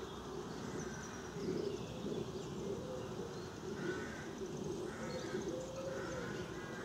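Background birdsong: low cooing like a pigeon's, repeated throughout, with a few small birds chirping faintly.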